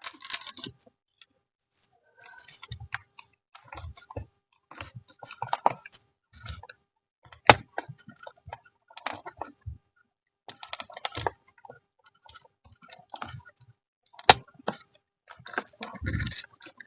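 Plastic car-interior console trim being handled and pressed into place: irregular clicks, taps and rattles of hard plastic, with a few sharper knocks, the loudest about halfway in and again near the end.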